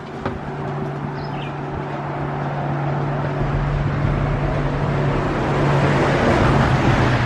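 Road traffic: a vehicle's engine hum and tyre noise growing steadily louder as it approaches, with a short bird chirp about a second in.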